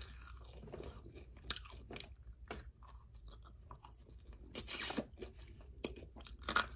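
Close-up mouth sounds of biting into and chewing crispy Wingstop chicken wings: scattered crunches and smacks. The loudest crunch comes about two-thirds of the way in.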